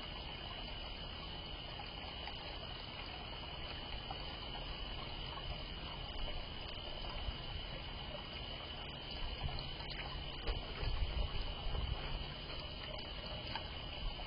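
A steady high-pitched night chorus over an even trickle of fountain water. In the second half a raccoon at the fountain pot adds low rustling and a few faint knocks.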